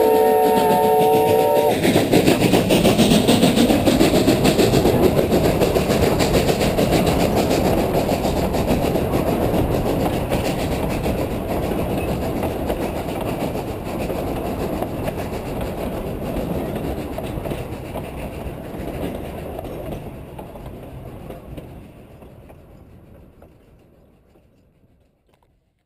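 Garden-scale model train running on its track, heard from aboard: a multi-note chime whistle sounds briefly and cuts off, then a steady rolling clatter of wheels over rail joints that grows quieter and fades away near the end.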